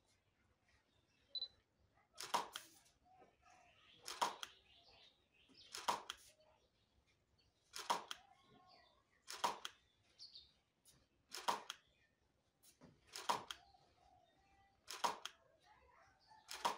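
Camera shutter firing at a steady pace, about once every two seconds, each shot a quick double click.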